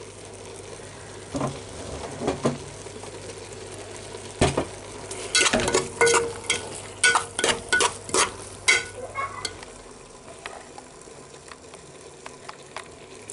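A metal spoon scraping and clicking against the sides and bottom of a metal pot as cooked rice is stirred, over a low steady sizzle from the heat under the pot. The scrapes come irregularly, thickest in the middle, and die away over the last few seconds.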